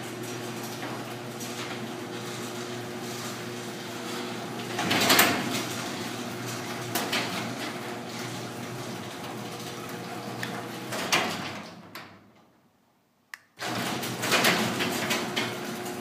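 Electric garage door opener running as it raises a sectional aluminium garage door: a steady motor hum under the rattle of the door in its tracks, with loud pops and bangs from the panels about five seconds in, about eleven seconds in and again near the end. The door has a sagging section that has been braced with a metal bar. The sound breaks off for about a second shortly before the last bang.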